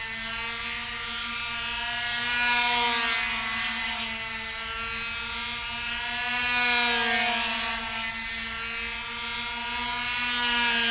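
Small two-stroke glow engine of a control-line model airplane running in flight: a high, steady buzz whose loudness and pitch swell and fade about every four seconds as the plane laps the circle.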